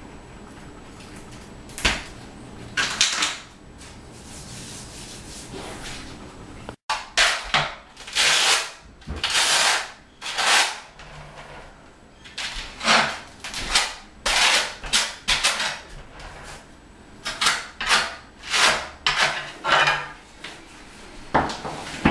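Steel notched trowel scraping thinset mortar across the back of a large porcelain tile, back-buttering it in a run of strokes, roughly one or two a second. A couple of short scrapes or knocks come in the first few seconds, before the strokes start.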